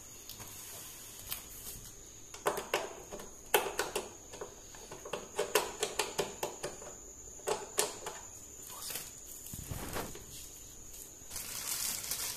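Handling of a plastic-wrapped TV stand base: the film crackles and crinkles in clusters of sharp clicks while the stand is screwed onto the back of the TV, with a rustle near the end.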